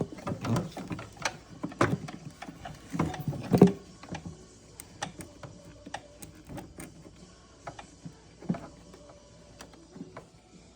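Hands working a wiring connector loose behind a motorcycle's plastic dash panel: irregular plastic clicks, knocks and rattling, busiest in the first four seconds with the loudest knock about three and a half seconds in, then only a few scattered clicks.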